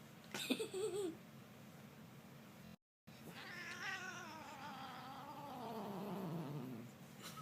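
Domestic cat making angry yowling cries: a short wavering one near the start, then after a brief cut-out a long, drawn-out wavering yowl of several seconds that slides down in pitch toward the end.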